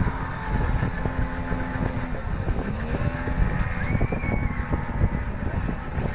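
Speedboat engine running steadily while the boat is under way. A brief high whistle rises and falls about four seconds in.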